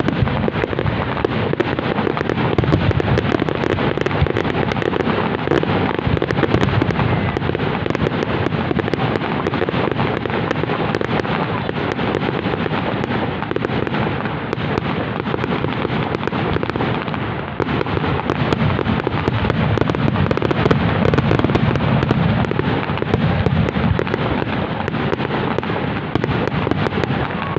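Fireworks display: a dense, continuous barrage of bangs and crackling shells, briefly easing a little over halfway through before building again.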